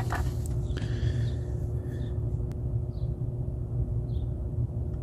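Steady low background rumble with a constant hum, with one faint click about halfway through and faint short high chirps roughly once a second in the second half.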